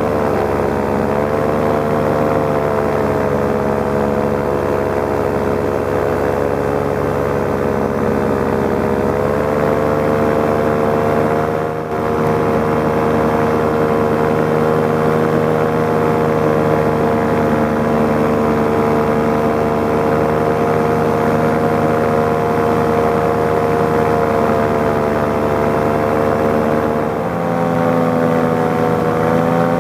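Paramotor engine and propeller running steadily in flight, its pitch drifting slightly with the throttle. Loudness dips briefly about twelve seconds in, and the pitch steps up near the end.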